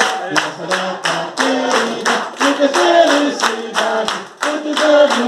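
Hands clapping in a steady beat, about three to four claps a second, along with singing through a microphone and loudspeaker, with several voices joining in.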